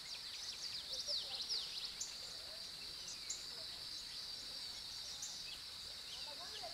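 A steady high-pitched drone of insects, with birds chirping in quick downward-sweeping notes, busiest in the first two seconds and sparser after. Beneath them is a faint, even hiss of fountain water.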